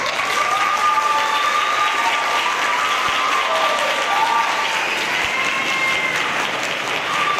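An audience applauding, starting suddenly and holding steady, with long cheering calls over the clapping.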